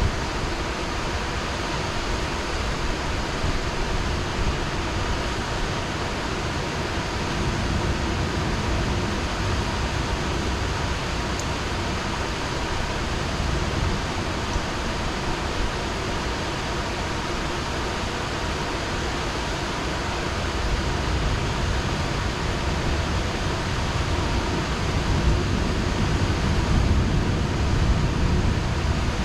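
Heavy rain pouring steadily, an even wash of noise. A low rumble swells in the last few seconds.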